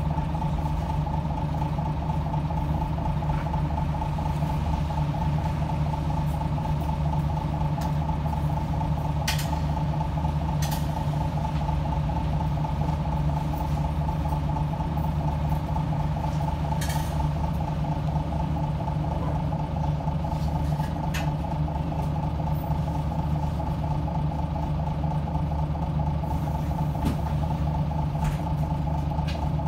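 Bus engine running steadily, heard from inside the passenger cabin: a constant low hum with a steady higher tone above it, and a few light clicks and rattles.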